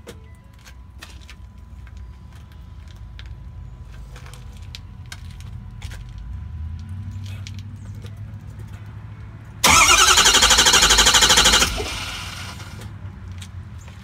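Starter cranking the 2011 Ford F-250's 6.7 L Power Stroke diesel for about two seconds, a loud fast pulsing about ten seconds in that cuts off without the engine catching: a no-start, with the AirDog II lift pump not priming.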